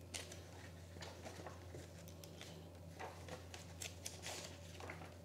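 Pages of a glossy paperback booklet being turned by hand: soft, scattered paper rustles and flicks, over a low steady hum.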